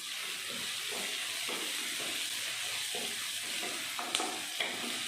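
Chopped onions sizzling in hot sesame oil in a pan as they are stirred, with a steady hiss and soft scraping strokes, and two sharp clicks of the spatula against the pan near the end.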